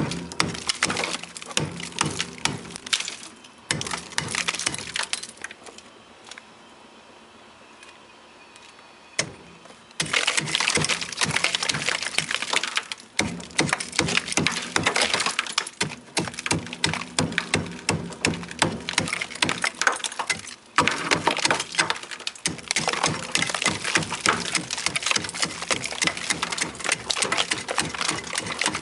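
Rapid chipping and scraping at thick frost and ice in a freezer with a chisel, a dense run of knocks with ice chips pattering down. It pauses for a few seconds about a quarter of the way in, then carries on.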